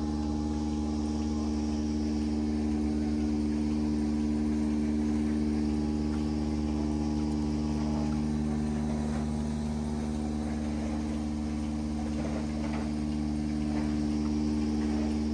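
Milking machine's motor and vacuum pump running with a steady, even hum.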